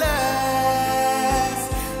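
A male solo singer holds one long note over live band accompaniment, with a few low drum hits under it.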